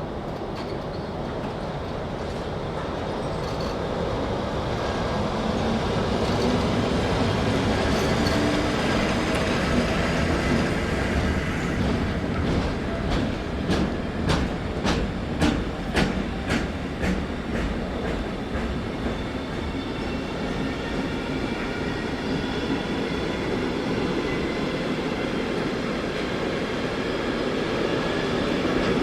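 Electric train passing, with a steady rumble, a whine rising in pitch over the first several seconds, and a quick run of clicks as the wheels cross rail joints about halfway through. High steady tones from the wheels or drive sound over the rumble in the second half.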